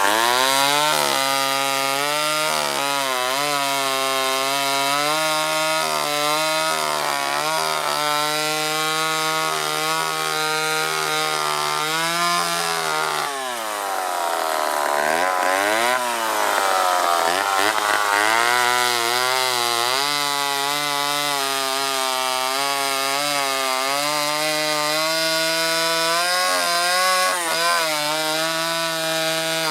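Homelite Super XL Automatic two-stroke chainsaw running under load as it cuts through a log, its engine note low and steady with small wavers. About halfway through, the engine slows down, then picks up speed again and settles back into the cut.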